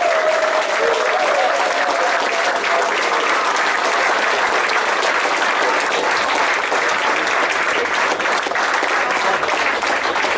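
Concert audience applauding steadily, welcoming a band onto the stage.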